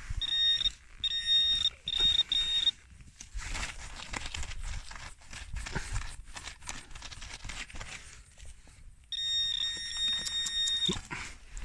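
Metal-detecting pinpointer beeping in short bursts, then sounding a longer steady tone near the end: it is signalling a metal target in the soil. In between, soil and dry grass crunch and scrape as the hole is probed.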